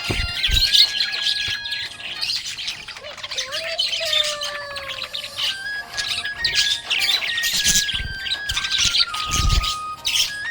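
Budgies chirping and chattering in a continuous stream of rapid, high chirps and warbles.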